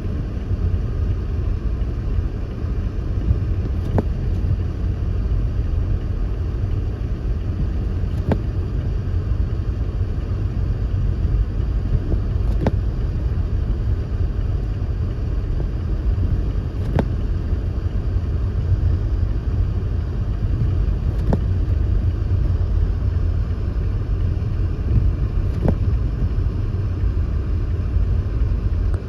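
Car on a snow-covered road: a steady low rumble of engine and tyres, with a faint click about every four seconds.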